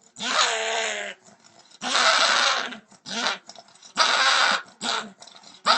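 A dog vocalizing in a series of raspy, noisy calls, most about a second long, with short gaps between them.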